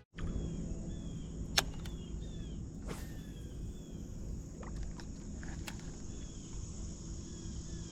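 Lakeside outdoor ambience: a steady high insect drone over a low hum, with faint short chirps and a few sharp taps, the loudest about one and a half seconds in.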